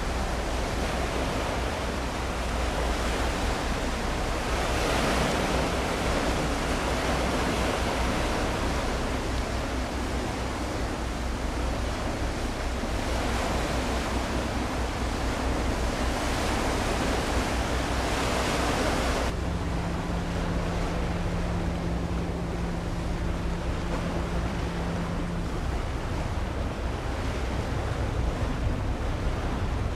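Wind on the microphone over the sound of waves: a steady hiss with a low rumble underneath. About two-thirds of the way through, the hiss drops off abruptly, and a faint steady low hum sounds for about six seconds.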